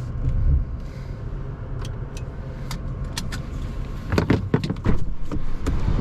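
Low road rumble inside a Porsche Macan 4 Electric, with scattered sharp clicks that gather into a burst of several loud knocks and rattles about four to six seconds in.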